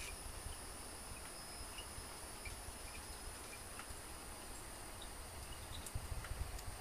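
Steady, high-pitched chorus of night insects such as crickets, with a faint low rumble underneath that swells briefly about six seconds in.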